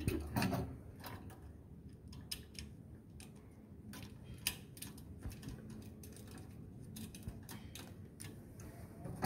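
Faint, irregular small clicks and taps of gloved hands fitting and tightening parts on the lid of a batch reactor vessel, with a louder knock just after the start, over a low steady hum.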